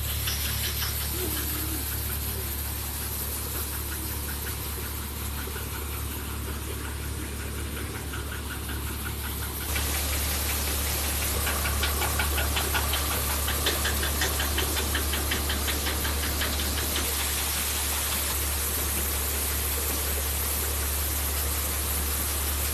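A Swaraj 855 FE tractor's three-cylinder diesel engine runs steadily under load, driving a wheat thresher through its PTO shaft, with the thresher's drum and sieves churning. About ten seconds in the sound jumps louder and a fast, even rattle comes in.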